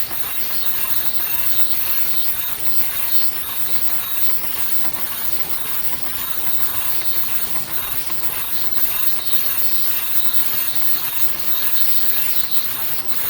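Automatic face mask making machines running at production speed: a steady mechanical clatter with a fast, regular high-pitched cycling rhythm, about two beats a second.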